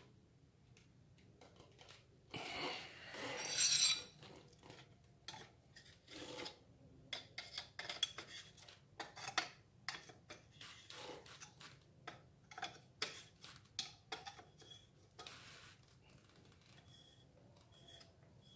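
Metal tools and engine parts being handled by hand: a loud scraping rattle of metal about two to four seconds in, then a string of light clinks and knocks as a long steel rod is set against the small four-stroke brush-cutter engine.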